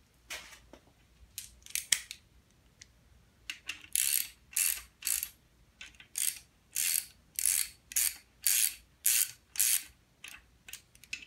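Hand ratchet running down ARP connecting-rod cap bolts, its pawl clicking in short bursts about two a second on each back-swing, after a few scattered clicks in the first seconds.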